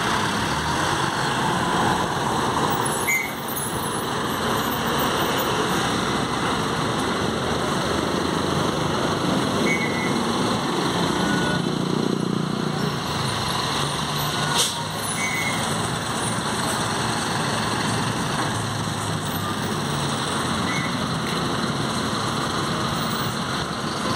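Diesel city buses running at a bus stop amid street traffic: a steady engine and road noise that swells in the low end around the middle. A single brief sharp sound cuts through a little past halfway.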